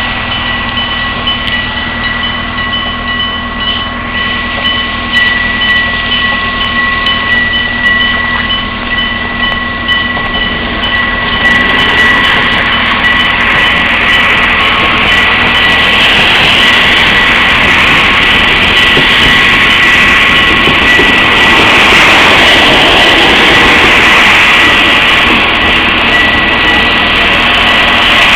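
Level crossing's struck warning bell ringing continuously. About twelve seconds in, a Towada Kanko Electric Railway 7200 series electric train approaches and passes, its running noise rising until it is louder than the bell.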